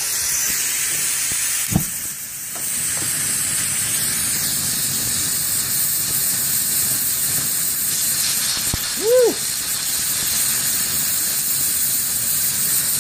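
Collapsible camping stove's gas burner running on propane at full flow: a loud, steady hiss. A click about two seconds in, and a brief rising-and-falling tone about nine seconds in.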